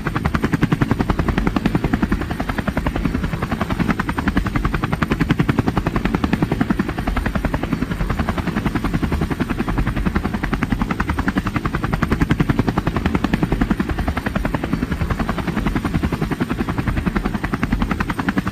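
Helicopter rotor chopping steadily, a loud, rapid and even beat of blade strokes.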